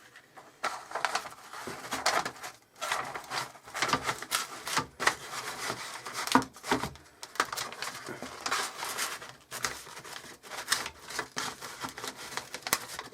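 A sheet of grid paper rustling and rubbing as it is laid over a wooden form and smoothed down by hand, with irregular crackles and light taps.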